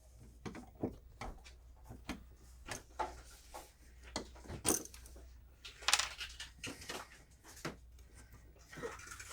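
Irregular small clicks, knocks and scrapes of hands handling an old wall receptacle and its wires, with two louder knocks about halfway through.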